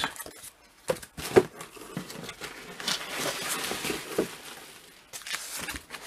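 Bagged comic books being handled: plastic comic sleeves rustling and sliding against each other, with a couple of light taps as a comic is set down on the pile.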